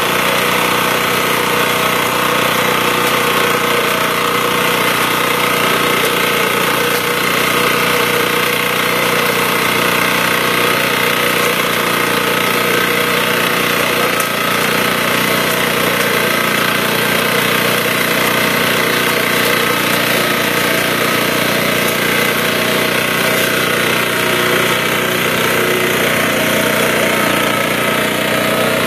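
Small engine of a walk-behind sugarcane cutting machine running steadily at an even pitch.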